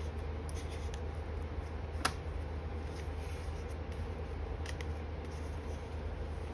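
Small clicks and handling noises of a screwdriver driving the screws that hold a laptop LCD panel in its frame: one sharp click about two seconds in and a quick pair of clicks near the end, over a steady low hum.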